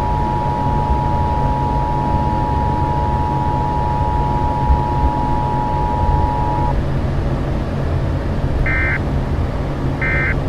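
Emergency Alert System attention signal: a steady two-tone electronic tone that cuts off after about seven seconds, followed near the end by two short, higher-pitched data bursts about a second and a half apart. A steady low vehicle rumble runs underneath.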